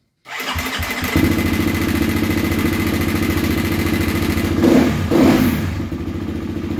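2020 Husqvarna FE250's single-cylinder four-stroke engine starting, catching almost at once and settling into an even idle, with two short throttle blips about five seconds in. It makes a little bit of rattle sound at first: the freshly reset hydraulic cam chain tensioner, slack until oil pressure pushes it back into place.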